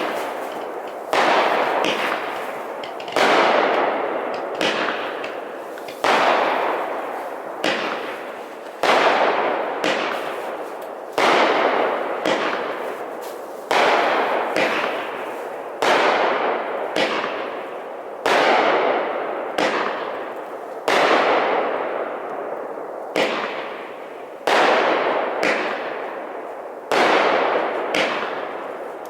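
Consumer fireworks going off in a steady sequence: a loud report about every two seconds, each trailing off in a long fading crackle and echo before the next.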